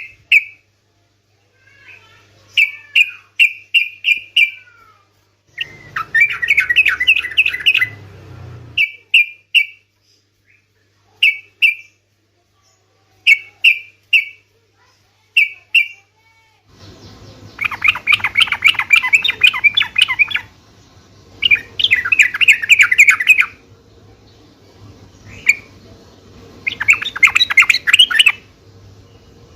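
Yellow-vented bulbul (trucukan) song: runs of short, clear chirps alternating with bubbling, chattering phrases a few seconds long, with brief pauses between. A faint steady hum sits underneath.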